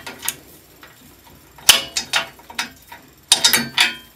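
Hand wrench turning a bolt on a steel work-light bracket: sharp metallic clicks and clinks in a few short clusters as the bolt is tightened down.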